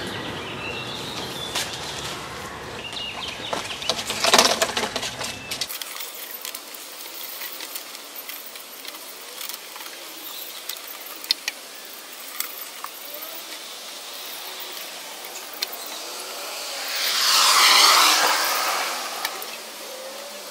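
Scattered clicks and rustling as a coil of black polyethylene pipe is handled and fed into a trench, with a loud burst of rustle about four seconds in. Near the end a car passes on the street, swelling and fading over a couple of seconds.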